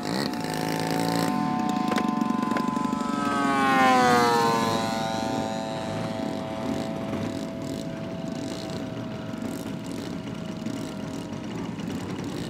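Propeller engine of a large-scale radio-controlled P-47 Thunderbolt model on the ground. Its pitch falls as it passes close about four seconds in, then it runs steadily at low throttle while taxiing.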